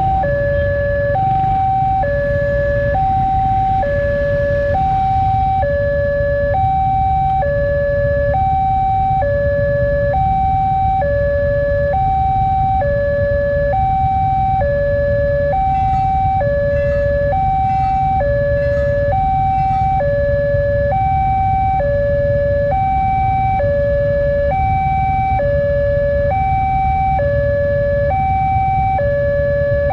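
Railway level-crossing warning alarm sounding: an electronic two-tone signal alternating evenly between a higher and a lower tone, each held about a second, with a steady low rumble underneath.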